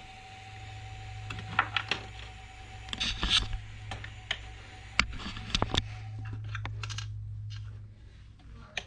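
Ender 3 Pro 3D printer powered on, its fans giving a steady low hum that stops near the end, with scattered clicks and knocks from hands handling the printer.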